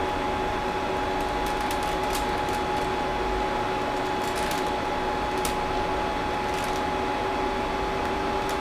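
Creality CR-10S Pro 3D printer's cooling fans running steadily: an even whirring hum with two steady whining tones and a few faint clicks.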